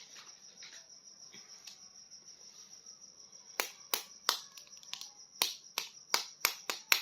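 A run of sharp plastic clicks, roughly three a second and irregular, starting about halfway in over a faint steady hiss, typical of a plastic action figure being handled.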